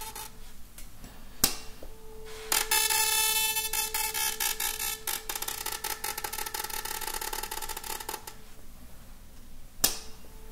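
A 440 Hz tuning fork with paper held in light contact against it. A sharp tap comes about a second and a half in. About a second later the fork is struck and rings with a buzzing rattle from the paper, fading over about five seconds. Another sharp tap comes near the end.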